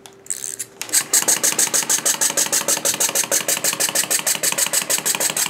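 Wind-up plastic grasshopper toy released on a tabletop, its clockwork mechanism running with a rapid, even clatter of about nine ticks a second, starting about a second in.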